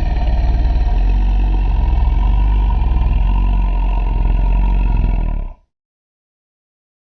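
A loud, low, rattling rumble sound effect, fast pulsing throughout, that cuts off abruptly about five and a half seconds in, followed by silence.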